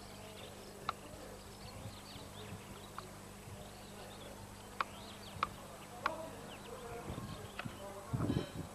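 Quiet outdoor ambience: a steady low hum under faint, scattered high chirps, with about six sharp clicks spread through it.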